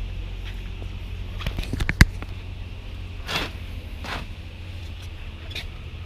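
Walking with scuffing footsteps and clicks and knocks from handled items, over a steady low rumble; a sharp click about two seconds in is the loudest sound, followed by two scuffing steps.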